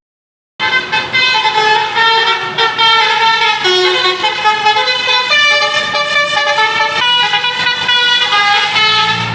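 A tour bus's telolet musical horn playing a quick tune of stepped notes, starting about half a second in after a brief dead gap.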